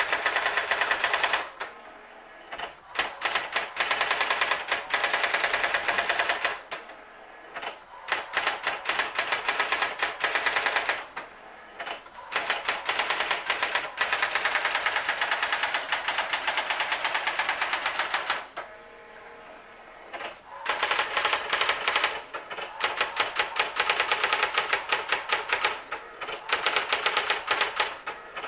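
Brother GX-6750 daisy wheel electronic typewriter printing its self-demo text: rapid runs of daisy-wheel strikes, broken by five short pauses of a second or two.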